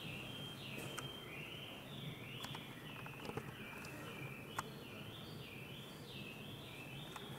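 Faint high-pitched animal chirping, repeated about twice a second, each call stepping down in pitch, with a few soft clicks.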